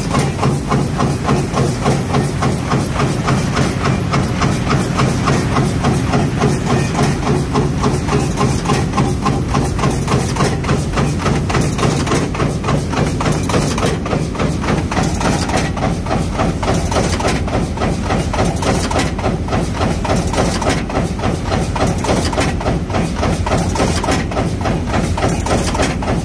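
Burr Oak FP3 100-ton fin press running at production speed, its ram stroking in a rapid, even rhythm of several strokes a second over a steady low hum from the line.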